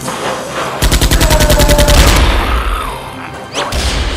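Rapid-fire gunfire, a machine-gun burst of about a dozen shots in under a second, starting about a second in, with another short burst near the end.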